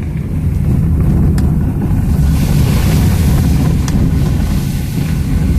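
Car interior noise while driving a wet dirt road: a steady low rumble of engine and tyres, with a hiss that grows about two seconds in and a couple of sharp ticks.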